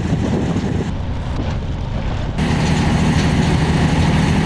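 Engine of a heavy machine running steadily, with a strong low hum. The higher part of the sound drops away abruptly about a second in and returns about two and a half seconds in.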